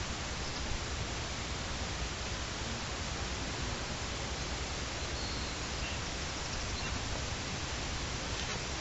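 Steady, even background noise with no distinct sounds in it: outdoor hiss and rumble on the microphone.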